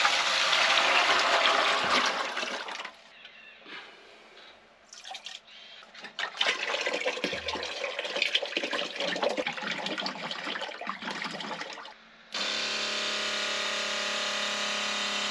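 Water gushing and splashing from a small electric water pump running continuously with its pressure switch bypassed, loud at first, then dropping away and coming back. About twelve seconds in, a steady motor hum takes over at an even level.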